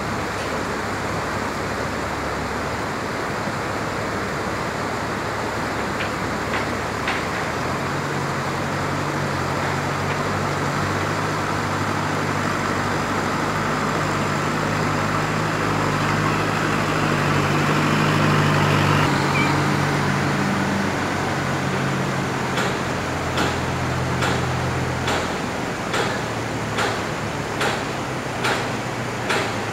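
Rushing river water, with a dump truck's diesel engine coming in about a quarter of the way through, growing louder as the truck pulls away from the excavator and passes, and fading out a few seconds before the end. Near the end, a series of sharp knocks, about one to two a second.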